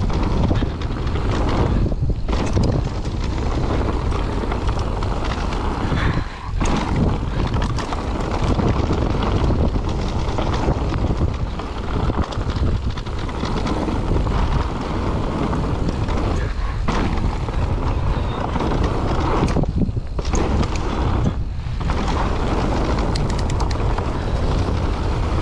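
Loud wind noise buffeting the microphone, with tyre rumble, as an electric mountain bike is ridden down a dirt trail. The noise drops out briefly a few times.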